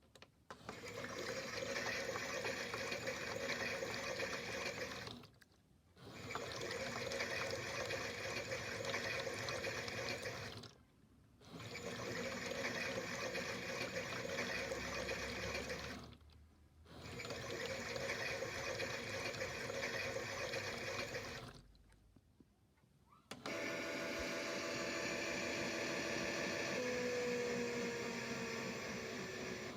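A toy washing machine's small speaker plays a recorded water-filling sound, repeated in about five-second stretches with short pauses between. Near the end it switches to a different recorded sound.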